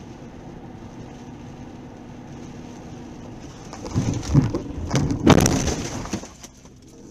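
Close thunderclap: a crackling crack builds about four seconds in, peaks a second later and rumbles away, over steady rain and road noise inside a moving car.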